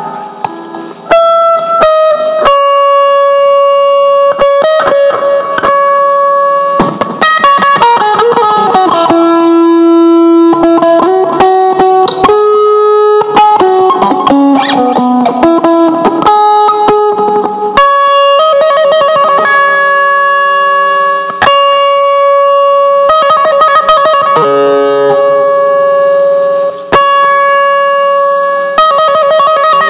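Guitar jamming, instrumental with no singing: a melodic line of long held notes broken by quick falling runs.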